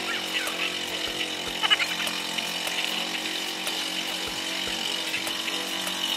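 A motor running steadily, with a few light clicks and knocks over it.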